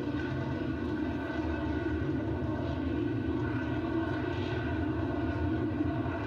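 Lockheed Martin F-35 Lightning's single F135 turbofan engine running at flying power, a steady low jet rumble with a faint whine held above it.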